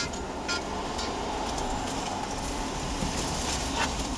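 Steady low rumble of an idling vehicle with street ambience, heard from inside a stopped car, with a few faint clicks.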